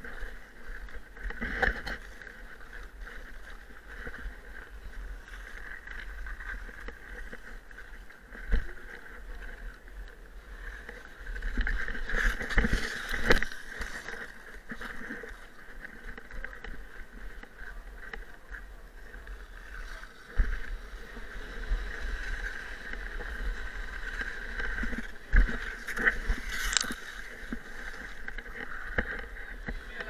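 Ice skate blades scraping and carving on a downhill ice track, heard close up from a camera worn by the skater at speed, with a steady low rumble of wind on the microphone. A few short, sharp knocks stand out, the loudest about 13 and 25 seconds in.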